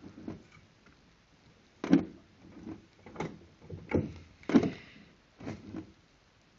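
Clutch pedal and newly fitted clutch linkage of a second-generation Chevrolet Camaro being worked in and out, giving a run of uneven knocks and clunks that starts about two seconds in, roughly one every half to one second.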